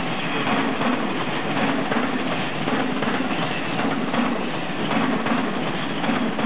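Train running past on the tracks, a steady rush of wheel and rail noise with faint repeated clicks.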